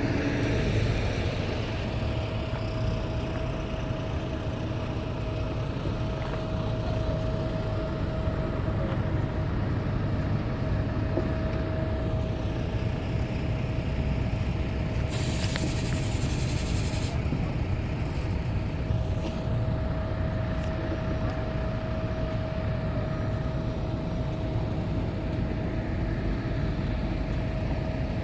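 A heavy engine running steadily, a constant whine over its low rumble. About halfway through comes a two-second burst of high hissing.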